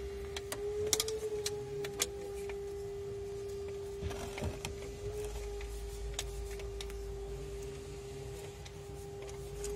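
Plastic distributor cap of a Daewoo Nexia being handled and seated on the distributor: light clicks and knocks, the sharpest about a second and two seconds in, and a short scrape around four seconds in, over a steady high-pitched hum.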